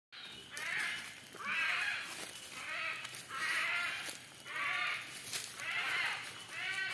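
Capuchin monkey calling over and over, about one short, pitched call a second.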